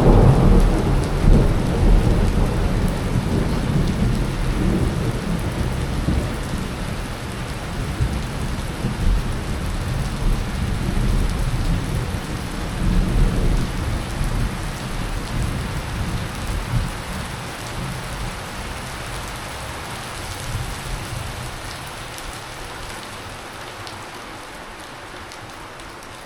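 Thunder rolling, loudest at the start, swelling again about halfway, then slowly dying away, over steady rain falling.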